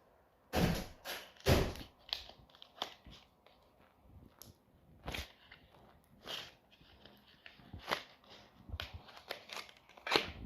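Irregular handling noises: sharp taps and brief crinkling rustles, the two loudest about half a second and a second and a half in, then scattered lighter ones.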